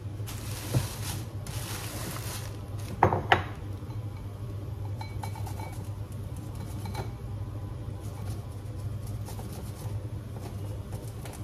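Ceramic bowls clinking and knocking as they are set down on a kitchen counter, with the loudest clatter about three seconds in, followed by faint small clicks of hands working in a bowl. A steady low hum runs underneath.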